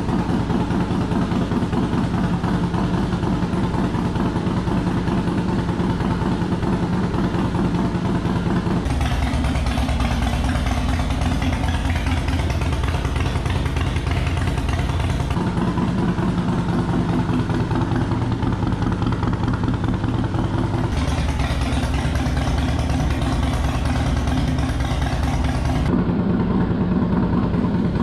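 2005 Harley-Davidson Softail Deluxe's Twin Cam 88 V-twin idling through Vance & Hines Big Shots pipes. The exhaust note changes tone abruptly several times as the sound switches between the stock Big Shots baffles and the Super Q baffles.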